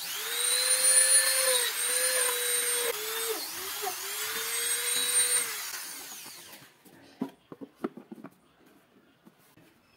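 Handheld rotary tool with a grinding-stone bit running at high speed, its pitch sagging briefly a few times under load as it grinds the PVC plate's centre hole larger. About five and a half seconds in it is switched off and spins down, followed by light handling knocks.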